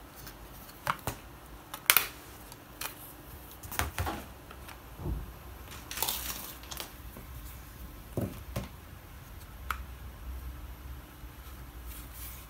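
Handling noises: irregular clicks, taps and rustles of small parts being picked up and set down, the sharpest click about two seconds in.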